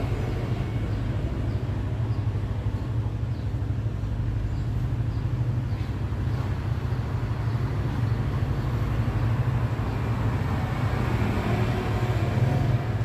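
Steady low mechanical rumble, an even drone with no clear rhythm or change.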